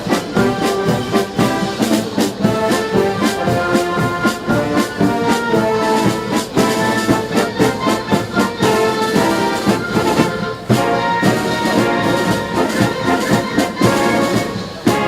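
Brass band music, with trombones and trumpets playing held notes over regular drum beats.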